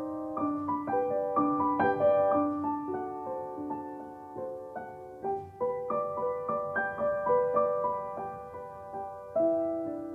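Soft, slow background piano music, single notes and chords ringing out one after another.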